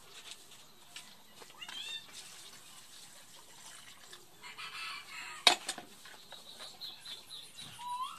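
A few short animal calls, with a brief rising call near the end, and one sharp click about five and a half seconds in.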